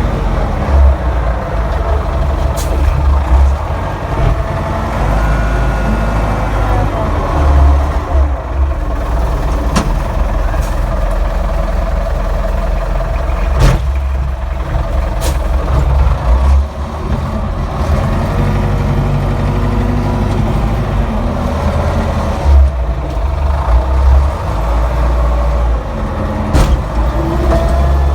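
Caterpillar 920 wheel loader's diesel engine running under load, its level swelling and easing with the work, with a few sharp clanks.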